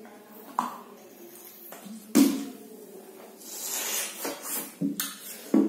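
Plastic Pepsi bottles being drunk from hands-free: scattered clicks and knocks of the bottles, a louder knock about two seconds in, and a breathy slurping hiss in the middle.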